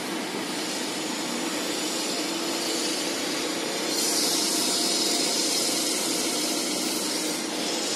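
Steady mechanical hum with a hiss over it. The hiss grows louder and brighter from about halfway through until shortly before the end.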